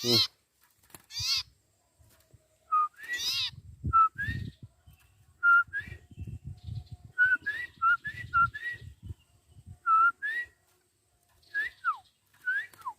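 Small songbird calling: a few harsh, wavering chatter calls near the start and again about three seconds in, then a string of short rising whistled notes, with two longer falling whistles near the end. Low thumps of handling are heard through the middle.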